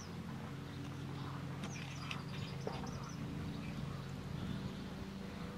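Faint outdoor ambience: a steady low hum, with a few brief bird chirps about two seconds in.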